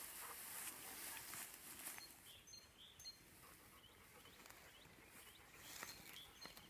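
Faint rustling of grass and footsteps as a roe deer carcass is dragged through long grass, dying away about two seconds in. After that it is near quiet, with scattered short chirps of small birds.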